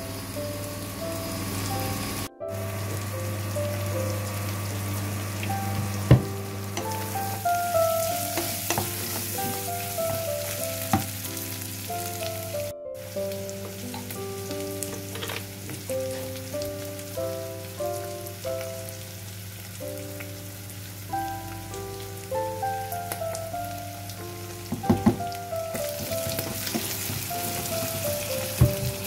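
Ground beef and potato cubes sizzling in a saucepan, with a wooden spatula knocking and scraping against the pot a few times. A simple melody of background music plays throughout.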